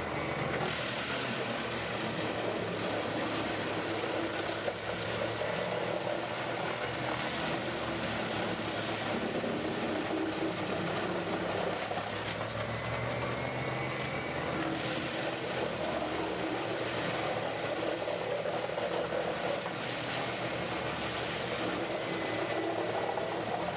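Morbark 30RXL wood chipper running under load: a steady engine drone with a rushing chipping noise that swells every few seconds.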